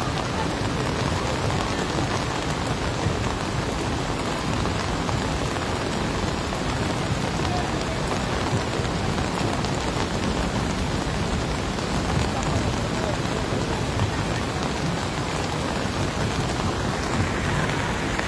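Heavy rain pouring steadily onto a wet road, a dense unbroken hiss with a deep rumble underneath.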